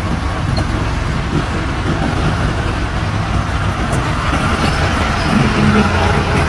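Heavy diesel road-construction machinery running steadily, a low engine drone with a wash of mechanical noise over it.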